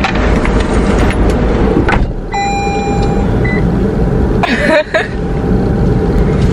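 Steady low rumble of a car with the engine running, heard from inside the cabin, with a few short crackles. About two seconds in, a steady electronic tone sounds for about a second, with two short higher beeps.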